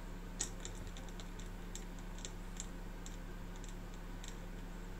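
Faint, irregular light clicks and ticks from the freshly shimmed gear set in an open airsoft AEG gearbox half as it is turned by finger to check the shimming. The loudest click comes about half a second in.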